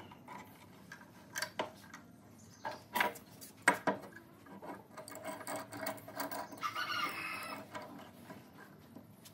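A metal clamp being handled and fitted onto a wooden strip: a handful of sharp knocks and clicks of metal against wood.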